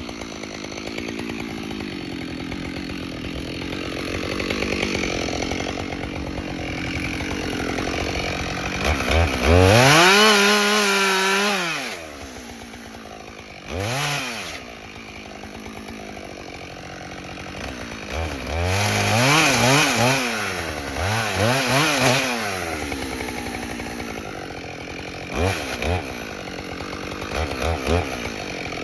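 Two-stroke chainsaw idling and being revved: it climbs to full throttle about ten seconds in and holds there for roughly two seconds, then gives a run of shorter revs around twenty seconds in, dropping back to idle between them.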